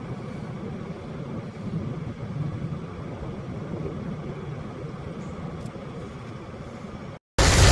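Low, steady rumble of a vehicle running, played back at double speed. Near the end it cuts out for a moment and gives way to a much louder, steady rushing noise.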